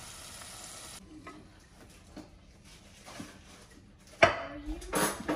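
Kitchen cooking sounds: food sizzling in a pan for about a second, cutting off abruptly, then light utensil clicks and stirring, a sharp clank of a pot or dish about four seconds in and more clattering near the end.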